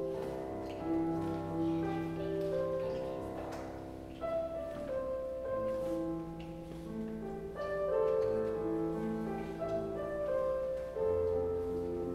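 Slow instrumental keyboard music: held notes and chords changing about every half second, with a low bass note held near the end.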